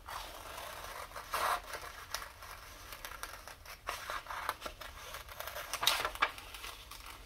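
Scissors cutting through a glossy magazine page in a series of short, irregularly spaced snips.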